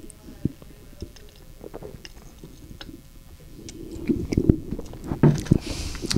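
People sipping and swallowing beer: scattered small mouth and lip clicks at first, then louder gulping and mouth sounds from about four seconds in, with a short hiss near the end.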